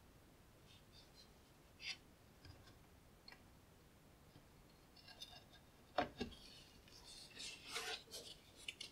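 Plastic housing of a Cisco Catalyst 9120 wireless access point being handled and fitted back together: faint scattered clicks and rubs, a single knock about six seconds in, then a short scrape.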